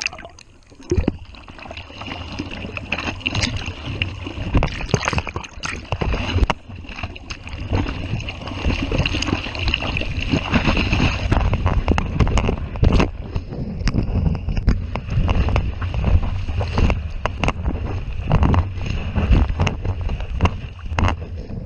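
Wind buffeting the microphone in uneven gusts and knocks over the wash of surf breaking.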